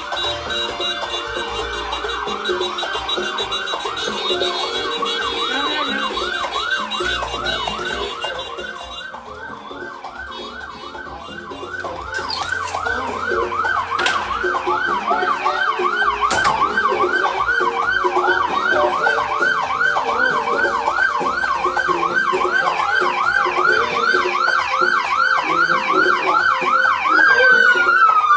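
Vehicle siren on a fast yelp, rising and falling about three times a second without a break. It dips for a few seconds in the middle and then grows louder, with a few sharp clicks around the middle and one longer falling sweep near the end.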